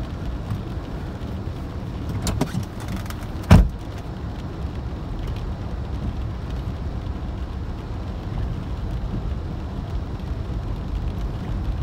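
Car driving slowly through floodwater, heard from inside the cabin: a steady low rumble of engine, tyres and water. A couple of light knocks come a little over two seconds in, and one loud thump about three and a half seconds in.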